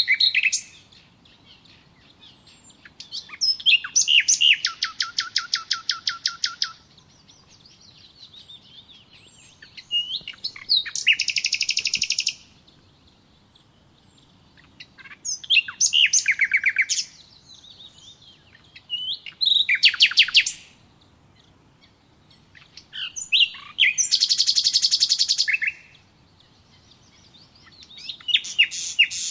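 A songbird singing in separate phrases about every four seconds, each a few quick sliding chirps running into a fast, high trill of repeated notes, with short quiet pauses between phrases.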